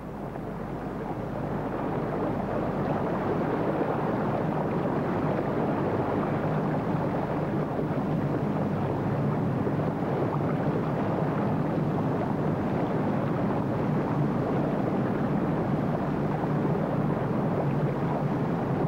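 A steady rushing noise that fades in over the first few seconds and then holds even.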